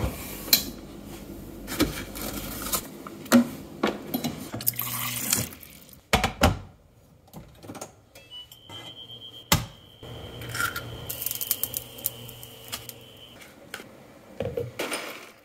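Kitchen handling sounds: a stainless steel fridge door opened, items knocked and set down, and liquid running or being poured. A steady high tone lasts about five seconds in the second half.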